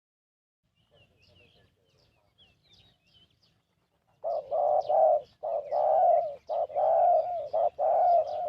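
Faint small-bird chirps, then about four seconds in a spotted dove starts cooing loudly: a run of low, mellow coo notes with short breaks between them.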